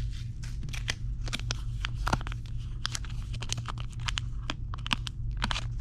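Crinkling and crackling of plastic packaging being handled and opened to take out a replacement Apple Watch screen: many irregular sharp crackles, over a steady low hum.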